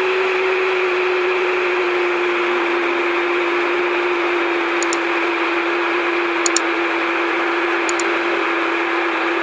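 Steady jet airliner cabin noise heard from a window seat in flight: engine drone and airflow hiss, with one steady hum that slowly drops slightly in pitch. Three light clicks come in the second half.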